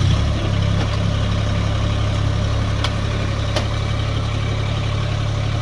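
Branson 1905 compact tractor's diesel engine, just started, settling into a steady idle.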